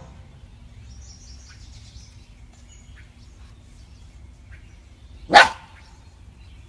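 Golden retriever puppy giving a single short, sharp bark about five seconds in, over a quiet background.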